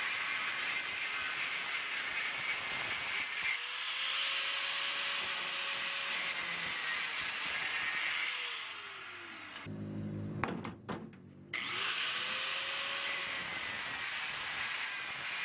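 Corded power tool cutting metal while scrap air-conditioner radiators are stripped: a steady harsh whine and hiss. A little after halfway the motor winds down and stops for about two seconds, then spins back up and keeps cutting.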